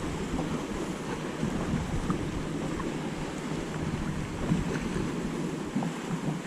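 Wind buffeting the microphone over water lapping, with a faint steady low hum underneath.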